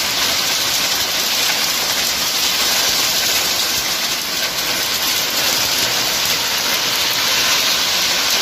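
Heavy rain driven by strong wind, a loud, steady, dense hiss of the downpour.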